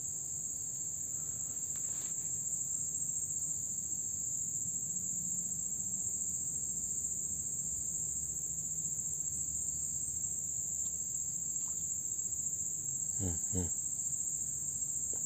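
Steady, high-pitched chorus of insects, a continuous chirring with no breaks in it. A man's voice murmurs briefly near the end.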